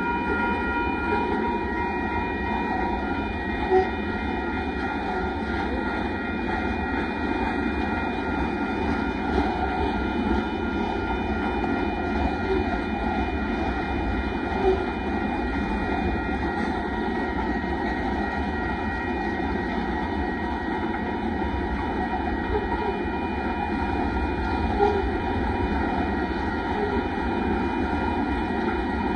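Union Pacific rock train's loaded hopper cars rolling past a grade crossing: a steady rumble of steel wheels on rail, broken by a few sharp clanks. A thin high ringing tone fades out in the first few seconds.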